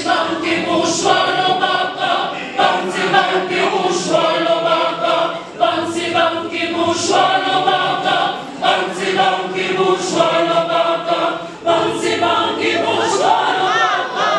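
Mixed choir of women's and men's voices singing unaccompanied in harmony, in phrases of held chords broken every second or two.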